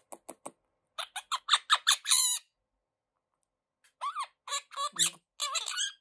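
Quaker (monk) parakeet vocalising: a few short clicks, then about a second in a rapid run of around eight sharp, high chirps, and after a pause a string of squawky, chattering calls near the end.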